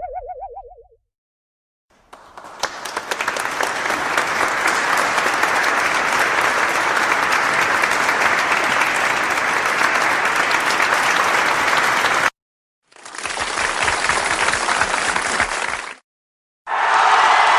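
Audience applause sound effects played back to back: a long round of clapping that swells in about two seconds in and cuts off abruptly, a shorter round that stops sharply, then another starting near the end. A wobbling boing sound effect dies away in the first second.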